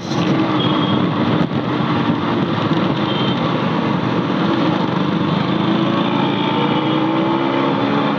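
Motorcycle engine running while riding in traffic, heard from the bike itself, over a steady rush of road and wind noise; the engine note shifts slightly in pitch near the end.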